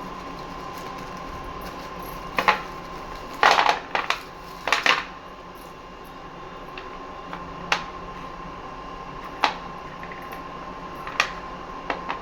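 Small hard slate or clay pieces clicking and knocking against each other as they are handled, a quick run of clinks a couple of seconds in, then single clicks every second or two over a steady hum.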